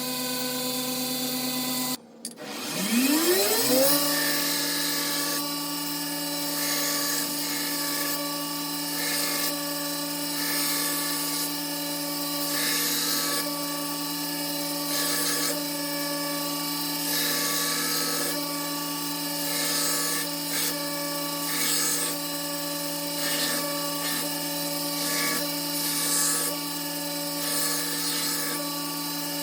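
Belt grinder with a 50-grit belt: the motor dips out about two seconds in, spins back up with a rising whine, then runs steadily while a knife blade's edge is ground on the belt in repeated passes, the scratchy grinding swelling every second or two.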